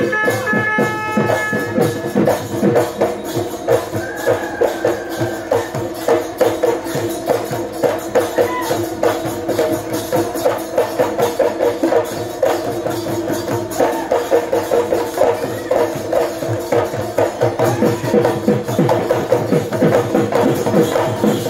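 Live Bihu music: Assamese dhol drums beaten in a fast, dense rhythm under a steady held melodic line.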